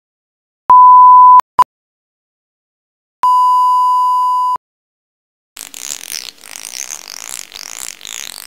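1 kHz bars-and-tone test tone: a loud pure beep under a second long and a short blip, then a buzzier 1 kHz tone for about a second and a half. About five and a half seconds in, a wavering high hiss starts and runs on.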